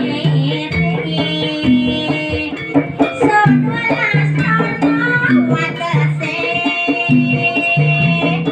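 Jaranan (kuda lumping) accompaniment music: a held, wavering melody line over drumming and a steadily repeating two-note low pattern.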